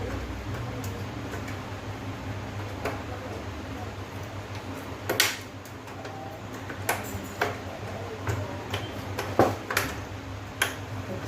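Scattered clicks and light knocks of parts being handled and fitted into place while reassembling an LED TV, over a steady low hum.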